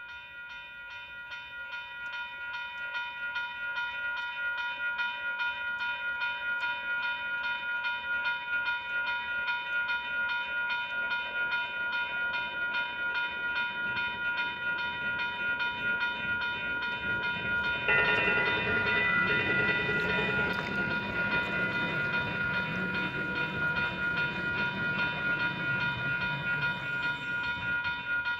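Grade-crossing warning bell ringing in a quick, steady rhythm. About 18 seconds in, the rumble of a passing train rises underneath it and the sound grows louder.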